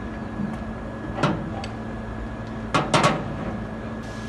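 Sharp metal clicks and clinks from a cutter, collet and spanners being fitted and tightened on a CNC router spindle: one about a second in, then a quick cluster of three near three seconds. A steady hum runs underneath.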